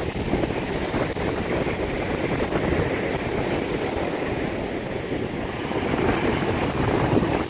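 Sea surf washing on the beach, with wind buffeting the microphone: a steady, rumbling wash.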